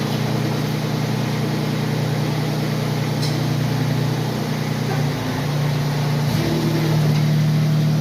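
Grasshopper mower engine running steadily after repair work. Its note changes about five seconds in and rises slightly a second later.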